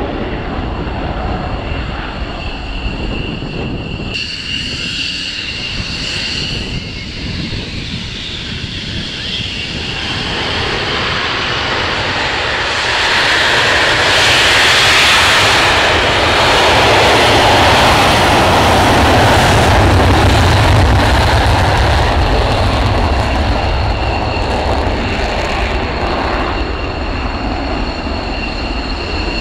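F-16 fighter jet engines. A jet roar at first gives way to the steady high whine of F-16s taxiing at low power. A much louder jet roar with a deep rumble swells in the middle and fades, then the taxiing whine holds to the end.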